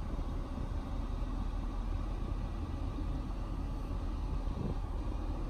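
Steady low rumble of road and engine noise heard from inside a moving car's cabin.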